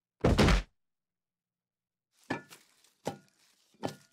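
Cartoon thud of a small body falling off a couch onto the floor, a loud hit about a quarter second in, followed by three short, softer knocks under a second apart.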